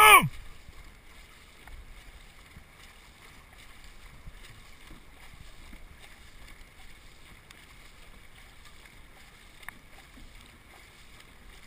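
Dragon boat being paddled at speed: an even, fairly quiet wash of water from the hull and paddle strokes, with wind on the microphone. A loud shouted call is cut off at the very start.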